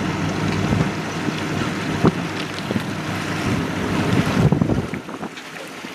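Wind buffeting the microphone and water rushing and splashing, with a few sharp knocks, over a low steady motor hum that drops away about five seconds in.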